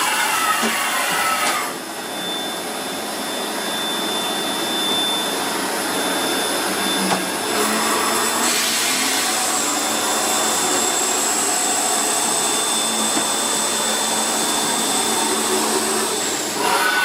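Mikron VC 1000 CNC machining centre running: a loud, steady hiss with faint steady tones in it. A high, thin whine sets in about halfway through, dips slightly in pitch, then stops shortly before the end.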